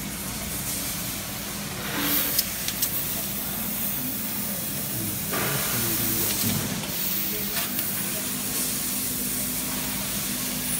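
Fiber laser cutting machine cutting steel plate: a steady hiss from the cutting head over a low machine hum, with a few sharp clicks about two seconds in.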